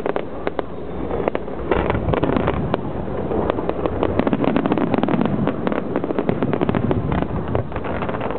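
Aerial fireworks going off in quick succession: a dense run of distant bangs and crackles over a steady rumble.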